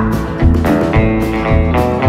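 Instrumental backing music, a guitar over a steady beat of about two hits a second.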